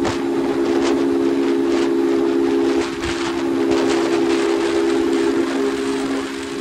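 MH Drift 150 motorcycle's engine running hard at high revs at cruising speed: a steady, high drone, with wind rushing over the microphone. The level dips briefly about three seconds in.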